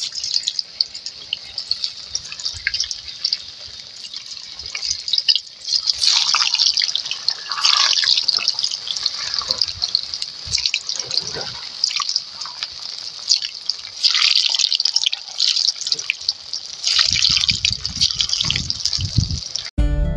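Pieces of dough deep-frying in hot oil in an aluminium kadai, sizzling and crackling with many small pops. The sizzle grows louder about six seconds in.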